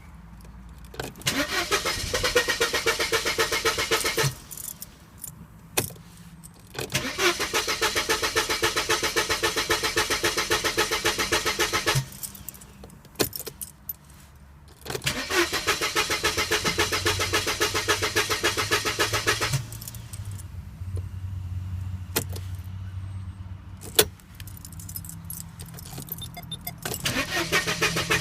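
A car's starter motor cranks the engine in four long attempts, a rapid, even chugging, and the engine does not start. Sharp clicks sound in the pauses between attempts.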